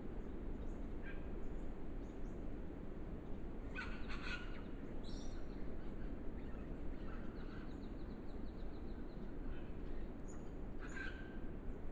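Wild birds calling: short calls about four and five seconds in, a fast run of ticking notes after that, and another call near the end, over a steady low background hiss.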